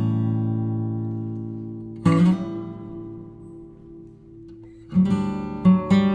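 Acoustic guitar background music: a strummed chord rings and fades away, another chord is struck about two seconds in and dies down, and a quicker rhythmic strumming picks up about five seconds in.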